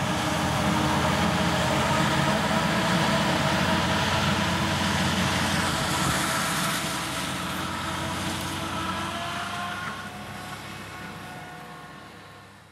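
Tractor and maize-chopping machinery running steadily in a harvest field, a constant engine drone that fades out over the last few seconds.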